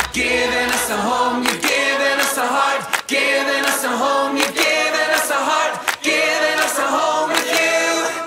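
Music: a group of voices singing together, choir-like, with sharp percussive hits every second or so.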